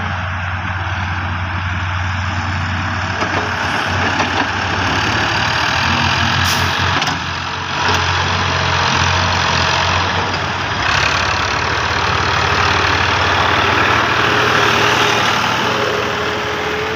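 Heavy diesel machinery engine running continuously, working harder from about three seconds in, with a few knocks around four seconds and a brief dip near eight seconds.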